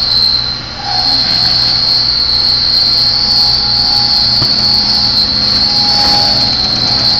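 Automatic persimmon peeling machine running while it peels a persimmon: a steady mechanical hum under a constant high-pitched whine, which dips briefly just under a second in.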